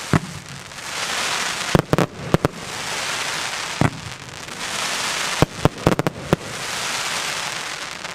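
Mega Willows firework cake firing: sharp shots come in small groups a second or two apart, each group followed by a swelling hiss as the willow stars burn, fading away near the end.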